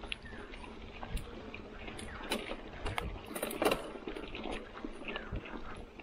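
2019 Marin Bobcat Trail 5 mountain bike rolling along a dirt and grass singletrack: tyre noise on the trail with scattered clicks and rattles from the chain and frame over bumps, the loudest burst of rattling a little past halfway.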